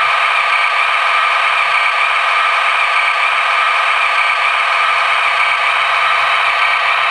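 Model locomotive sound decoder playing a diesel locomotive engine at full throttle with the radiator fan running, through the model's small onboard speaker: a steady, thin-sounding drone with little bass.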